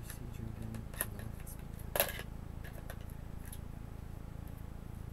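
Small screwdriver and laptop parts being handled during a Chromebook teardown: a light click about a second in and a sharper clack about two seconds in, with a few faint ticks, over a steady low hum.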